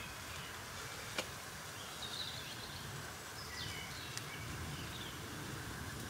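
Forest birds chirping over a steady outdoor hiss, with two sharp clicks, one about a second in and another about four seconds in.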